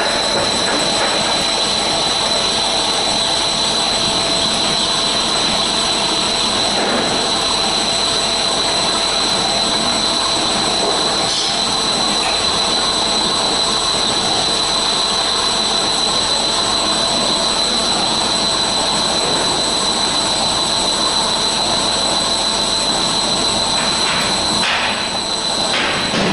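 Core drill on a Zoro CNC drilling machine cutting a large hole in a metal plate under coolant spray: a loud, steady cutting noise with a high, steady whine over it.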